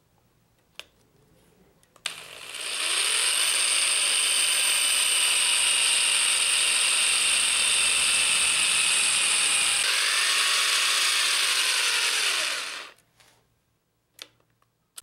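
Electric drill with a 1/8 inch bit drilling the roll-pin hole through a TH400 governor's nylon drive gear and steel shaft. The drill starts about two seconds in, runs steadily with a high whine for about ten seconds, then stops.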